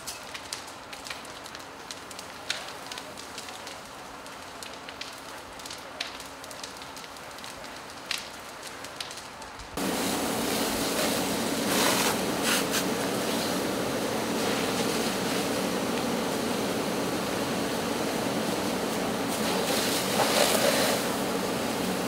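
Structure fire burning, crackling with many sharp pops. About ten seconds in, this cuts abruptly to a fire hose stream spraying onto the burning house: a louder, steady hiss over a low hum.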